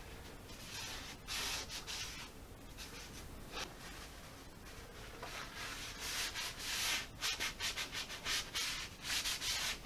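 Paper towel wiping the surface of a wooden headboard, in bursts of quick back-and-forth rubbing strokes, the busiest near the end.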